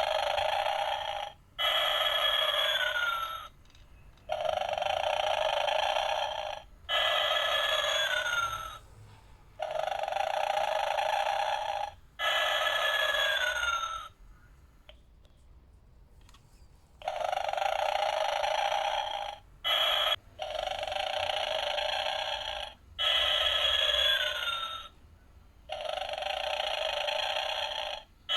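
Gemmy snoring Santa Claus toy playing its recorded snore over and over: a snoring in-breath followed by a whistling out-breath that falls in pitch. The cycle repeats about every five to six seconds, with one longer pause about halfway through.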